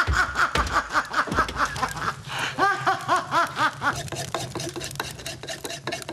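A person snickering in quick, repeated bursts of laughter, about four or five a second, dying away about four seconds in. Two dull knocks from the iron cauldron come near the start, and light clinks of wood on crockery run alongside.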